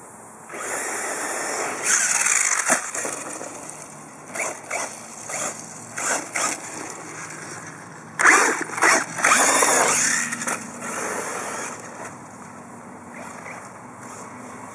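Radio-controlled off-road buggy running over loose dirt in throttle bursts. A long burst comes near the start, then several short blips, then another loud burst past the halfway point.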